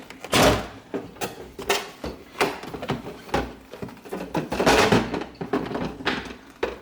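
Plastic ice bucket of a Samsung refrigerator being worked out of its ice maker compartment: a string of irregular clunks and knocks with sliding, scraping rubs.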